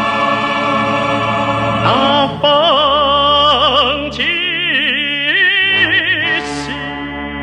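A Chinese song: held accompaniment chords, then about two seconds in a solo voice enters singing in an operatic style with wide vibrato, sustaining long notes.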